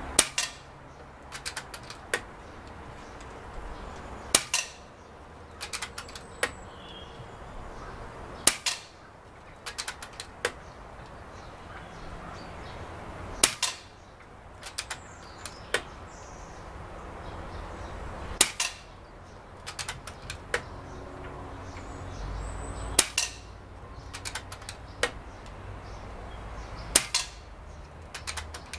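Moderated .22 FX Indy PCP air rifle firing seven shots, one about every four to five seconds, with lighter clicks of the action being worked between shots.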